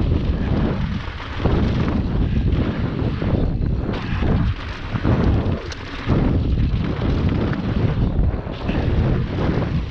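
Wind buffeting the action-camera microphone, with knobby mountain bike tyres rolling and crunching over a loose gravel trail on a fast descent. The rush swells and dips unevenly throughout.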